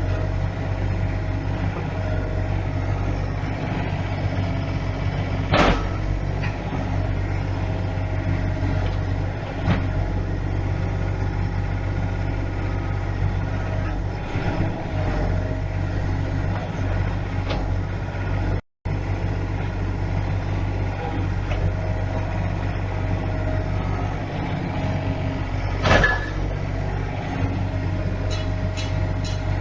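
An engine running steadily at idle, with a sharp knock about five seconds in and another near the end. The sound cuts out for a moment about two-thirds of the way through.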